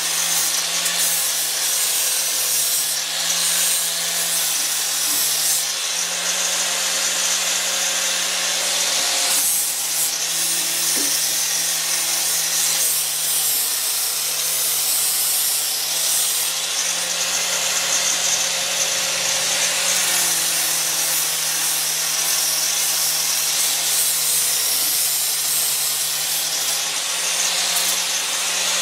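Angle grinder with a flap disc grinding a steel go-kart frame rail. It runs without a break: a steady motor whine under a loud grinding hiss, the whine's pitch dropping and rising slightly several times.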